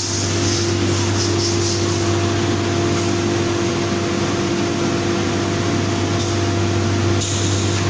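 Biesse Rover C6 CNC machining centre running: a steady machine hum with a constant whine over an even rushing noise. A higher hiss swells briefly about a second in and again near the end.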